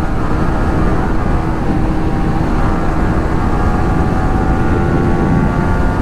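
Wind rushing over the microphone at road speed on a moving sport motorcycle, with the engine's steady note running underneath.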